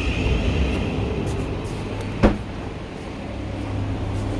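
Electric passenger train's steady low hum at the platform, with one sharp click a little over two seconds in.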